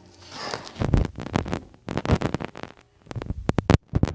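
Close handling noise right at the microphone: a quick run of irregular soft thumps, squishes and rubs with a heavy low end. It starts about a second in, pauses briefly near the end, then gives two last knocks.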